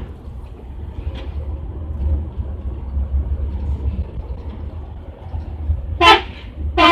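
Low, steady rumble of a bus engine and road noise. Near the end, two short, loud blasts cut in a little under a second apart.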